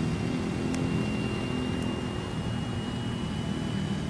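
Electric motor and air propeller of a radio-controlled model airboat running steadily as the boat moves across the water, a thin high whine held nearly level over a lower propeller hum.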